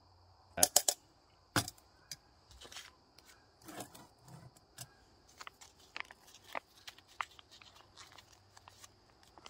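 Scattered sharp clicks and light knocks, three close together about half a second in, over a steady high insect trill.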